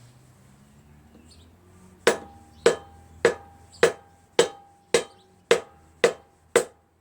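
A mallet's wooden side tapping a piston down through a hose clamp into the cylinder bore of a Briggs & Stratton opposed-twin engine block: nine sharp, even taps, a little under two a second, starting about two seconds in, each with a short metallic ring. The hose clamp is standing in for a ring compressor, holding the three piston rings compressed as the piston goes in.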